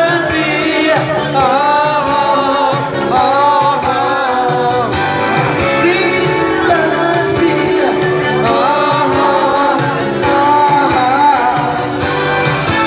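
A woman singing a song over accompaniment music with a steady beat.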